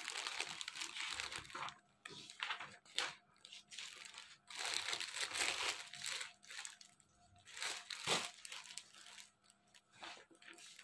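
Unstitched suit fabric being unfolded and spread out by hand, rustling and crinkling in irregular bursts with short pauses between them.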